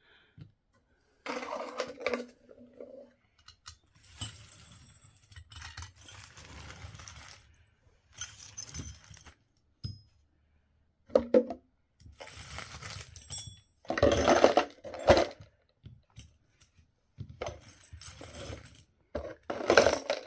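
Small metal hardware (nuts, bolts and screws) clinking and rattling as it is rummaged through and handled in a toolbox, in irregular bursts with short pauses between.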